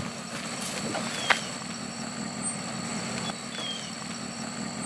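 Hummer H1 engine running low and steady as the truck crawls over a rocky trail, with one sharp knock a little over a second in.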